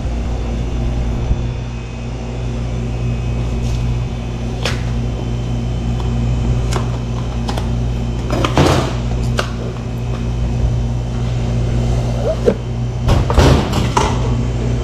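Stainless-steel mixing bowls and cardboard cheese boxes knocked and clattered on a steel counter as they are handled, with a few separate knocks and a denser burst of clatter near the end, over a steady low machine hum.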